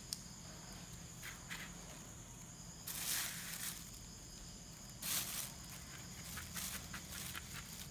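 Dry shredded tobacco rustling in short bursts as fingers spread it along a banana leaf on a metal tray, with two louder rustles about three and five seconds in and light crackles near the end. Crickets chirr steadily in the background.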